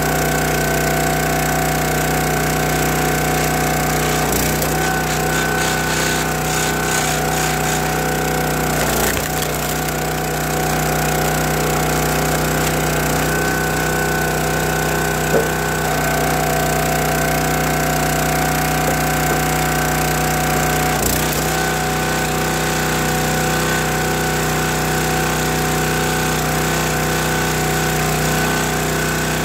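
Small gas engine of a County Line hydraulic log splitter running steadily, with a few sharp cracks of red oak and maple logs splitting apart on the wedge.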